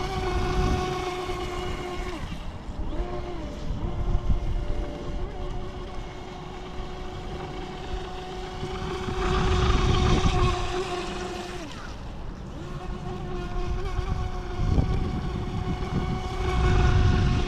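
DEERC RC speedboat's KV2850 brushless motor whining steadily at speed on the water. Its pitch dips briefly, as the throttle eases, about two to three seconds in and again around twelve seconds. A louder rushing noise swells around ten seconds in and again near the end.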